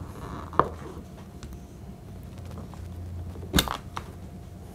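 Small metal clicks as the rebound slide and its spring of a Smith & Wesson Model 29 revolver are pried loose from the frame under a shop rag with a slotted spring tool: a light click about half a second in, then a sharper snap near the end as the part pops free.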